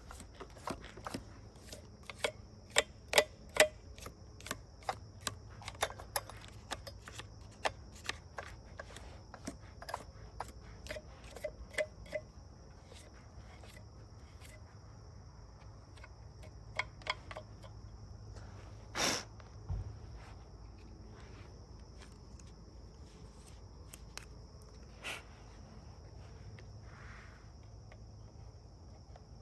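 Light clicks and taps of hand-cleaning a STIHL 462 chainsaw's sprocket area with a toothbrush and tweezers, frequent at first and thinning out after about twelve seconds, with a sharper click near the middle. A steady high hum runs underneath.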